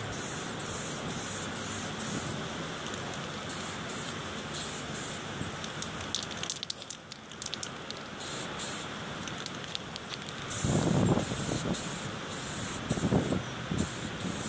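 Aerosol spray can of primer hissing in repeated passes, the spray stopping and starting many times. Wind gusts buffet the microphone twice near the end.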